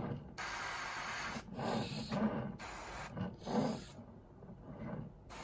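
Paint brush scrubbing weathering paint onto the surface of a model bridge, in four or five short rubbing strokes.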